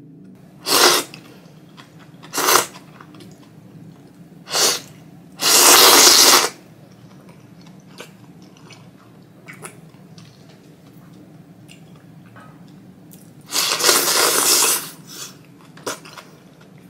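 A person slurping thick Jiro-style ramen noodles and broth from a ladle: three short slurps, then a longer one of about a second, a quiet stretch with a few faint mouth clicks, and another long slurp near the end.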